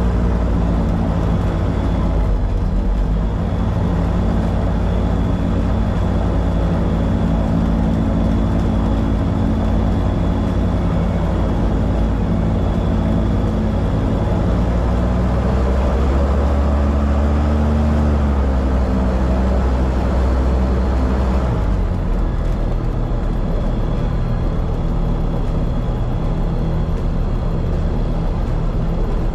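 Light aircraft's piston engine and propeller running at low taxi power, heard from inside the cockpit. The engine speed rises a little past halfway and drops back a few seconds later.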